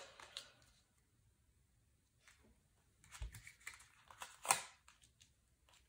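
Tarot cards being handled on a table: a card is drawn from the deck and laid down, with a few soft slides and taps, one dull tap about three seconds in and the sharpest sound about four and a half seconds in.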